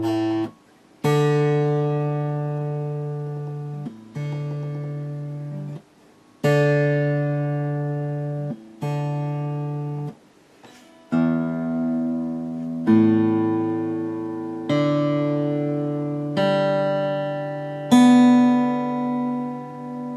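Fender Gemini II acoustic guitar, freshly restrung, played as a slow series of strummed chords, about nine in all. Each chord rings and fades for a second or two before being stopped or changed.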